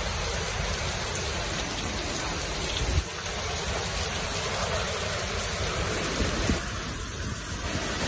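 Heavy rain pouring steadily, a dense even hiss of a downpour on the street.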